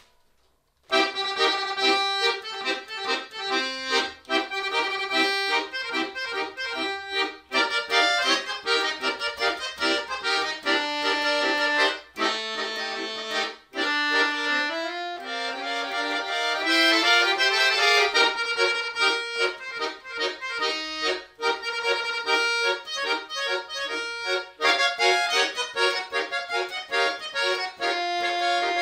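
Chromatic button accordion played solo: after a brief pause, music starts about a second in, with quick, detached chords and a rising run of notes about halfway through.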